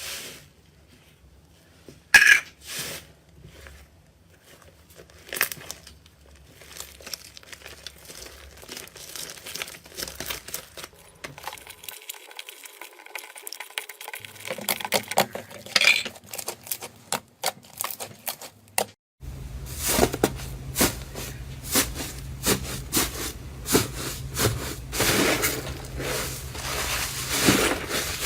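Slime being handled, squeezed and pressed by hand: a run of small sticky pops and crackles, sparse at first and becoming louder and denser about two-thirds of the way in.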